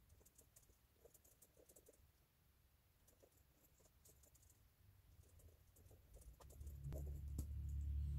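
Faint pen strokes and light ticks on paper as lines in a book are underlined. In the last second or two, a louder low rumble with a few sharper clicks from the book being handled.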